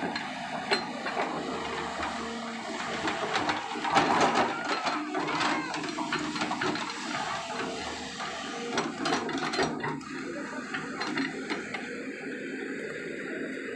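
Tata Hitachi EX 200 excavator's diesel engine and hydraulics running, with a steady whine that steps in pitch. The bucket scrapes and knocks through soil and stones, with a burst of clatter about four seconds in.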